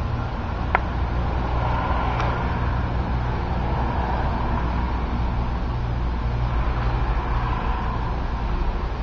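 Steady low rumble and hiss of background noise, with a single sharp click just under a second in.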